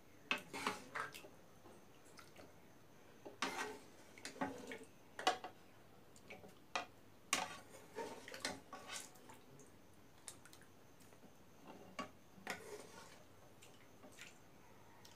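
Metal ladle scraping and clinking against a pan as cooked beef curry is scooped out, in irregular clusters of light knocks and scrapes.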